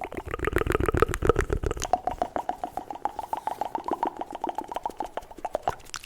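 Fast, aggressive ASMR mouth sounds close to the microphone: a rapid run of wet mouth clicks whose pitch shifts as the mouth changes shape.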